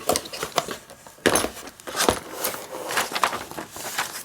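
Hands handling radio cables and connectors: an irregular run of clicks, knocks and rattles with rustling between them.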